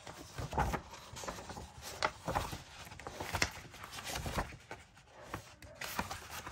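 Coloring-book pages being leafed through by hand: paper rustling and swishing in a series of short, irregular strokes, with a hand brushing over the pages.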